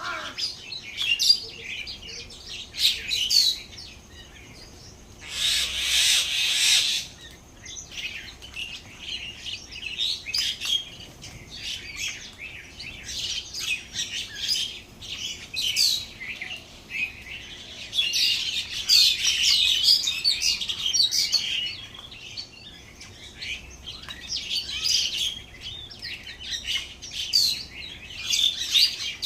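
Small birds chirping and twittering, many short high calls overlapping almost without pause, busiest about two-thirds of the way in. About five seconds in comes a louder, harsh, hissy burst lasting about a second and a half.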